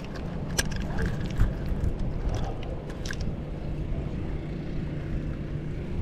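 Steady wind rumble on the microphone, with a handful of short sharp clicks and ticks from a Pursuit II spinning reel and rod as a live bait is cast out. The loudest click comes about a second and a half in.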